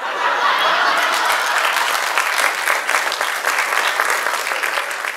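Theatre audience applauding, breaking out suddenly and thinning out near the end.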